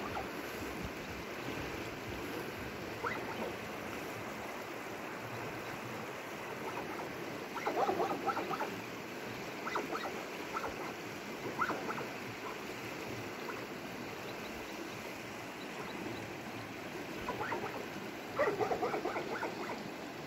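River water flowing, a steady rush, with short bursts of animal calls, strongest about eight seconds in and again near the end.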